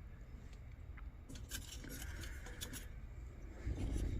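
Light clicks and rubbing from small metal lantern parts being handled, with a few sharper ticks clustered about a second and a half to two and a half seconds in.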